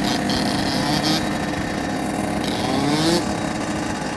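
Dirt bike engines running, with one engine revving up about two and a half seconds in and then dropping back.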